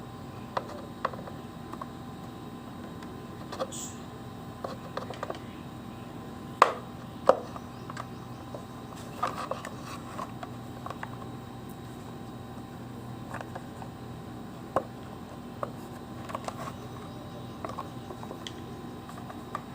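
Irregular clicks and knocks of plastic parts and a hand tool being worked while the plastic handle of an electric iron is taken apart. A few sharper knocks come about six to seven seconds in, over a steady low hum.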